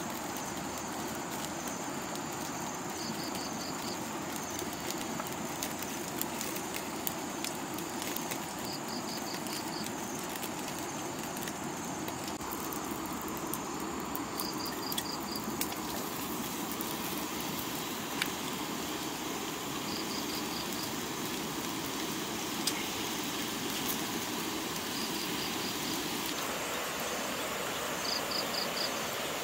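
Steady hiss with light crackling from a wok heating over a small wood fire. An insect chirps in short trills of about five quick pulses every five or six seconds.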